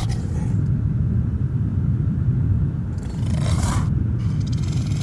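A steady low rumbling drone, with a short hissing whoosh about three and a half seconds in.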